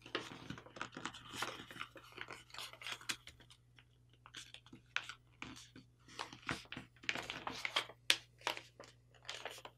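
A paper airplane's wing of letter-size paper being folded and creased by hand: an irregular string of soft crinkles, crackles and short rustling swipes, with a couple of brief pauses.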